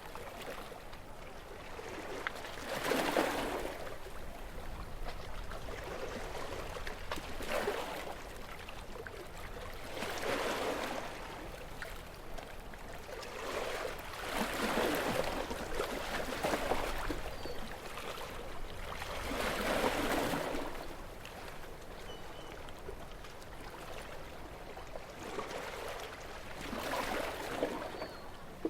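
Calm sea with small, gentle waves washing in: about six soft swells of water noise, several seconds apart, with a light trickling wash between them.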